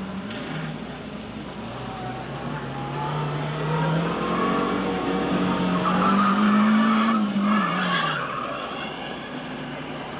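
A Toyota Starlet hatchback's engine revving hard on a gymkhana run, its note climbing in pitch, with the tyres squealing through a turn. The revs and the tyre noise are loudest about two-thirds of the way in, then the engine note falls away as the driver lifts off.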